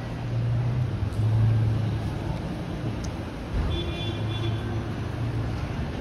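City street traffic: vehicle engines running with a steady low hum that swells and eases. A short high-pitched tone sounds about four seconds in.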